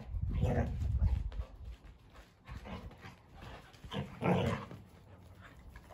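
Two dogs, a Labrador and a Cocker Spaniel pup, play-fighting: short bursts of dog vocal noise and scuffling, loudest in the first second and again about four seconds in.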